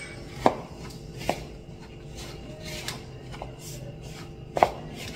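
Silicone spatula stirring and pressing a stiff almond-paste dough of ground almonds, sugar and egg in a ceramic bowl, with a handful of sharp knocks of the spatula against the bowl, the loudest near the end.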